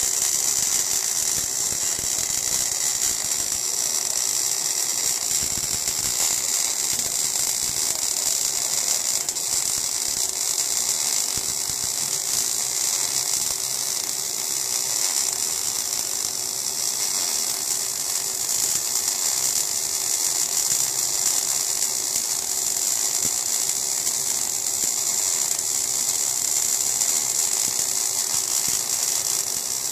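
MAG (gas metal arc) welding arc crackling in a steady, dense buzz as a fillet weld is run vertical-up, throwing spatter.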